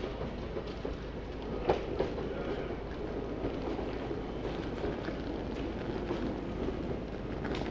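Ex-London Underground 1938 stock Class 483 electric train running into a station platform, a steady rumble of wheels on rails. Two sharp clacks come close together about two seconds in.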